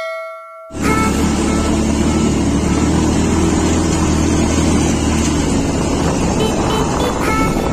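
A motorcycle engine running steadily while riding a rough dirt trail, heard through heavy wind noise on the microphone. It starts abruptly under a second in, as a bell-like chime dies away.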